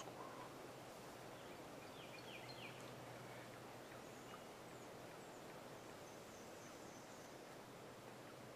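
Quiet woodland near silence, with a few faint small-bird chirps about two seconds in and fainter high chirps near the end. A low steady hum fades out about halfway.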